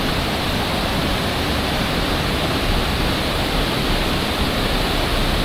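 Gitgit Waterfall's water pouring down in a loud, steady rush.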